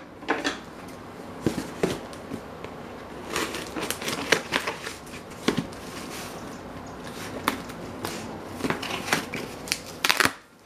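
Cardboard shipping box being handled, its packing tape picked at by fingers and then cut with scissors: scattered rustles, scrapes and taps, with a louder burst of cutting sounds near the end.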